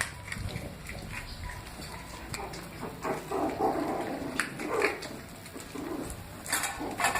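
Dog whining in a series of short pitched calls, mostly in the middle of the stretch, with scattered small clicks and knocks around it.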